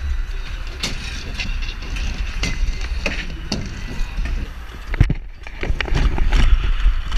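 Skateboard and inline-skate wheels rolling over concrete ramps, a low steady rumble broken by sharp clacks every second or so as wheels, trucks and frames strike the coping and land.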